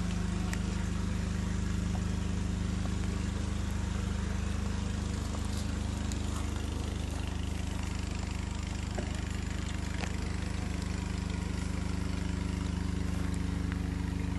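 Steady low hum of an engine running at constant speed, with a few faint ticks over it.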